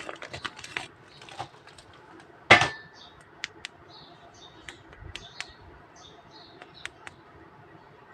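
Hard plastic toy figures clicking and knocking as they are handled and set down, with one loud knock about two and a half seconds in and scattered lighter clicks after it.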